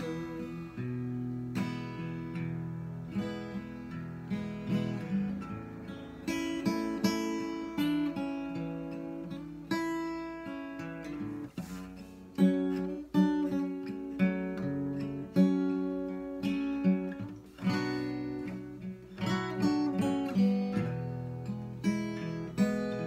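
Steel-string Martin acoustic guitar played solo, picked chords and single notes ringing out one after another.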